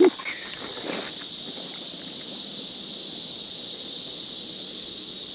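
Steady high-pitched insect chorus holding one tone, over a low even outdoor hiss; a faint knock about a second in.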